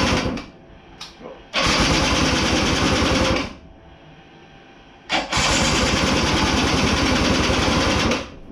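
Electric starter cranking a Kolpin 90cc ATV engine in repeated bursts, the last two about two and three seconds long, with pauses between. The engine turns over evenly but never fires: it still has no spark.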